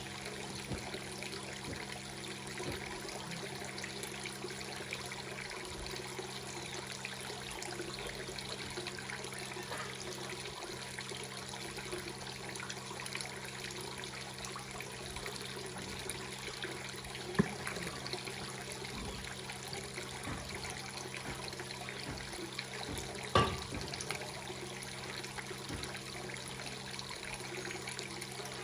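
Water trickling and splashing steadily into a fish pond, under a steady low hum. Two sharp knocks cut through, one a little past halfway and one about four-fifths of the way in.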